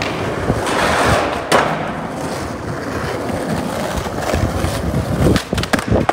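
Skateboard wheels rolling over stone paving, with one sharp crack about a second and a half in. Near the end comes a quick cluster of clacks and thuds as the board hits the ground.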